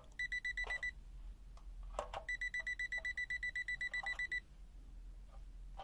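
Lomvum DM6S multimeter's non-contact voltage detector beeping rapidly, about ten high beeps a second, as it senses AC voltage. There is a short run of beeps at the start and a longer run of about two seconds beginning a couple of seconds in.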